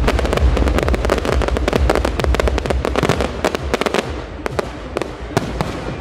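Crackling fireworks: a dense, rapid stream of sharp pops that thins out over the last two seconds to a few separate cracks.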